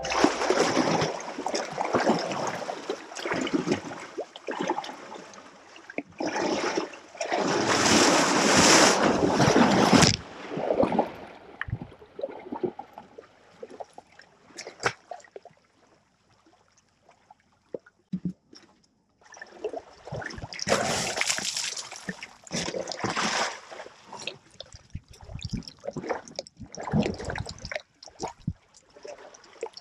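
Water splashing and sloshing close to the microphone as African elephants wade and drink around it, in loud bursts with short knocks and clicks between. It is loudest a few seconds in and again after a nearly quiet stretch in the middle.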